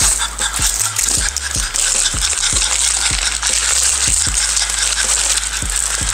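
Plastic wrapper rustling and crinkling as a syringe is unwrapped, over a French bulldog's rapid panting. Background music with a steady beat about twice a second runs underneath.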